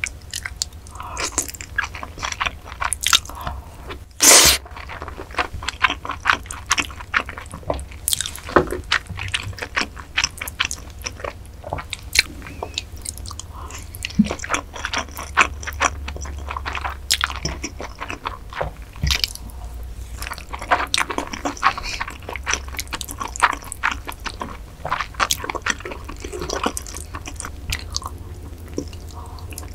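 Close-miked eating of spicy marinated-crab noodles: wet chewing, lip smacks and noodles being slurped in, with many short sticky clicks and one louder, longer slurp about four seconds in.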